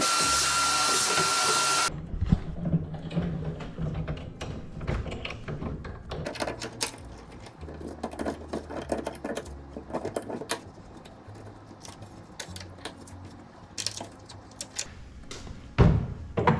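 A power drill runs hard for about two seconds and stops suddenly. Then come clicks, knocks and stretches of low motor hum as the drilling carries on in short runs, with one loud knock near the end.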